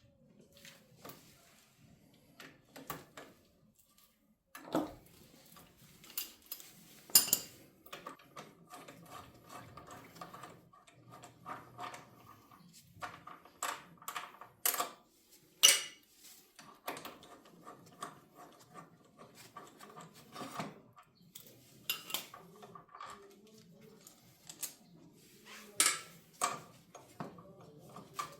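Metal tools and motorcycle front-brake parts clinking and clanking as they are handled, in irregular sharp clicks and knocks, some ringing briefly.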